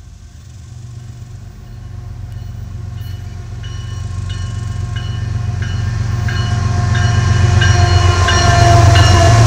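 BNSF diesel locomotives leading a tank-car train, approaching with their engines rumbling and growing steadily louder. From about two seconds in, a bell rings about one and a half strokes a second.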